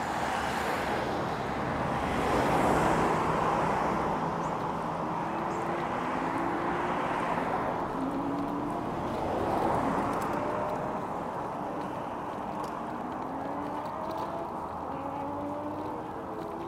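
Road traffic and wind noise, with vehicles passing and swelling louder about two seconds in and again near ten seconds. From about five seconds in, distant racing motorcycles can be heard, their engine notes rising again and again as they accelerate through the gears.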